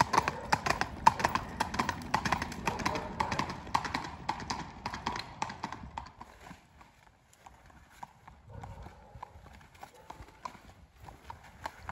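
Gaited horse's hoofbeats on a paved path: a quick, even clip-clop, loud for the first half, then fading to faint as the horse moves away, with faint hoofbeats picking up again near the end.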